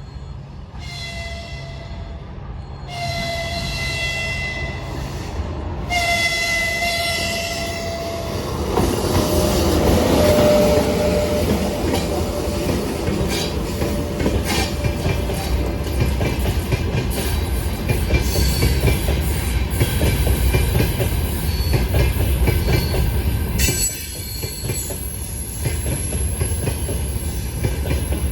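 2ES5K Ermak electric freight locomotive sounding its horn three times as a greeting, each blast longer than the last. It then passes close, and the freight wagons roll by with a steady clatter of wheels over the rail joints.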